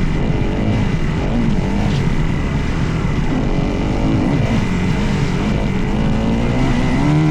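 Dirt bike engine revving up and down as it is ridden, its pitch rising and falling every second or so as the throttle opens and closes, over a steady rumble.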